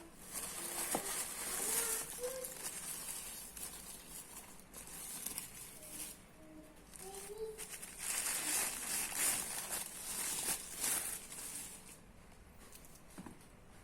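Plastic packaging crinkling and rustling in several bouts, with short pauses between them, as a pair of sandals is unwrapped.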